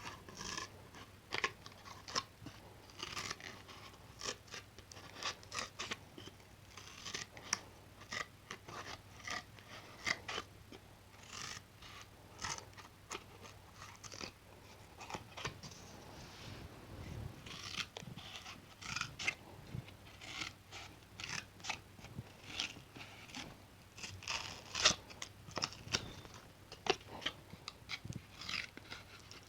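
Scissors cutting, an irregular run of sharp snips about two or three a second.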